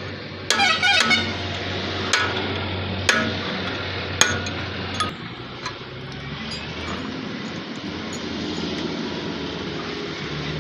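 Hammer blows on a steel drift against a truck wheel hub: a quick clatter of ringing metal strikes about half a second in, then single sharp strikes roughly a second apart. After about five seconds the strikes stop and a steady rumbling noise remains.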